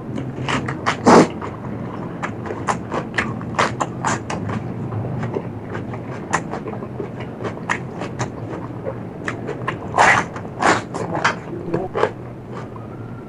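Close-miked chewing and biting of food, many short wet clicks and crunches, with louder crunchy bites about a second in and around ten seconds in.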